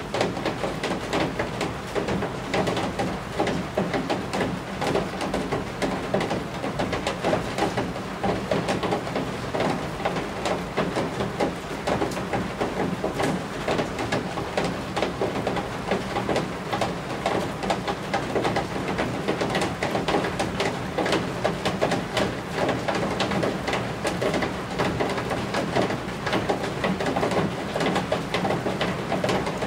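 Steady rain falling on the eaves of a roof, a continuous dense hiss of many separate drop hits.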